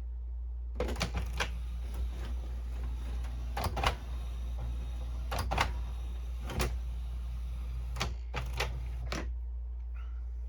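Irregular clicks and plastic rattles from hands working on the opened inkjet printer's wiring and parts, in several short clusters, over a steady low hum.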